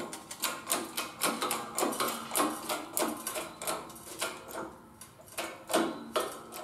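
Hydraulic bottle jack of a 20-ton shop press being pumped by hand: a quick, uneven run of clicks and knocks, about three or four a second, thinning out near the end, as the press pushes a bent pallet jack beam further past its spring-back.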